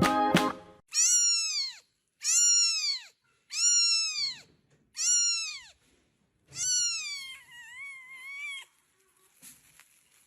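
Cat meowing five times, high-pitched calls about a second apart that each rise and fall in pitch; the last meow is longer and wavers.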